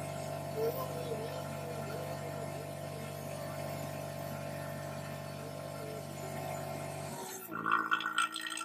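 Steady machine hum from the repair bench's vacuum pump, with a faint wavering tone over it; the hum cuts off abruptly about seven seconds in, followed by a few light clicks.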